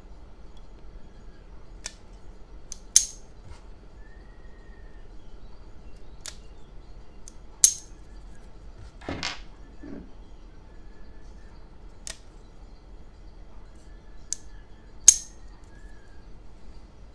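Sharp metal clicks from a stainless-steel rubber band pistol as rubber bands are stretched along the barrel and hooked onto its star-shaped rear catch. There are three loud clicks, at about 3, 7½ and 15 seconds, with fainter clicks between them and a soft rubbing scrape about 9 seconds in.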